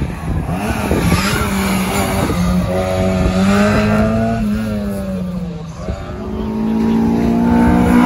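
Classic Mini's four-cylinder engine revving hard under acceleration on a sprint course, its note climbing and then falling away about halfway through. Near the end a second car's engine, a Mazda MX-5's four-cylinder, climbs in pitch and grows louder as it comes closer.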